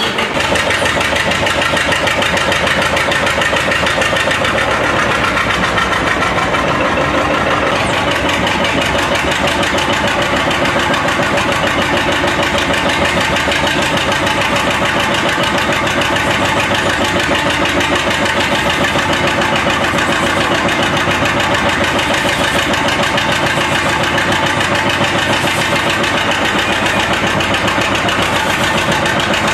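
John Deere 830 two-cylinder diesel tractor running steadily under load as it belt-drives the flywheel of a large Buckeye oil engine, turning it over in an attempt to start it; the engine does not catch, and the drive belt is slipping a lot.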